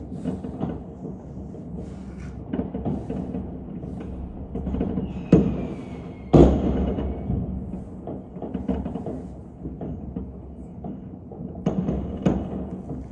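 New Year's Eve fireworks: irregular firecracker and rocket bangs, some near and some distant, over a steady background of faraway bangs. The two loudest come about five and a half and six and a half seconds in, with a faint whistle gliding down just before the first.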